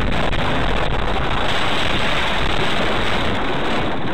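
Loud, steady rushing noise on a car dashcam's microphone: wind and road noise, with no clear impact standing out.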